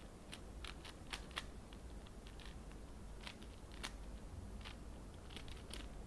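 Plastic layers of a 4x4 Rubik's cube clicking as they are turned by hand: faint, irregular clicks, several in quick runs.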